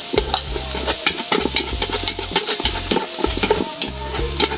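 Minced lemongrass and garlic sizzling as they fry in a large aluminium pot, stirred with chopsticks and a wooden spatula that keep scraping and tapping against the pot.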